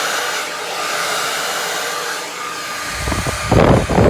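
Hot Tools Helix Turbo blow dryer running with a steady rush of air. About three seconds in, a burst of loud, low rumbling lasts for about a second.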